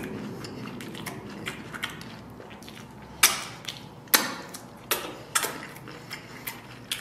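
Close-miked eating sounds: a person chewing with the mouth full of saucy lamb, with wet lip smacks and sucking as sauce is licked off the fingers. A run of sharp smacks, the loudest a little past three and four seconds in.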